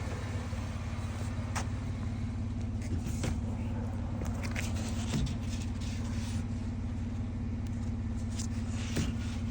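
Vehicle engine running steadily with a low hum, with scattered light clicks and ticks over it.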